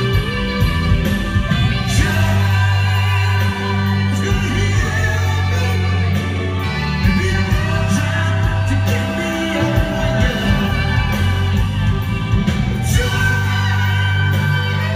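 Live rock band playing a song with a lead singer, backed by bass, drums, electric guitar and keyboards.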